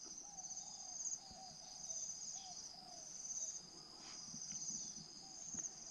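Steady, pulsing high-pitched insect chorus, with faint short cooing notes of a spotted dove scattered through it.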